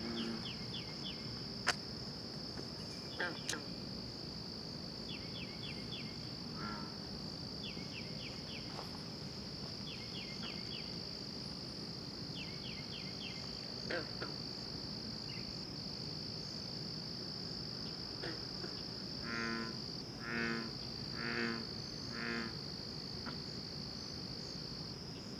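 Night-time animal chorus: a steady high-pitched insect trill, short runs of about four quick clicks every couple of seconds, and, about three-quarters of the way through, four louder rattling calls in a row that sound like a goose and that others take for frogs.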